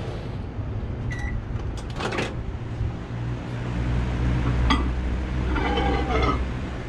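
Microwave oven being worked to reheat plastisol: a short beep about a second in, a few sharp clacks of the door and cup, and a low hum through the second half.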